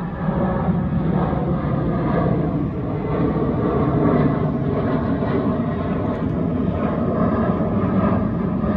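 Boeing 737 climbing out after takeoff, its CFM56-7B turbofan engines giving a steady roar with a low rumble.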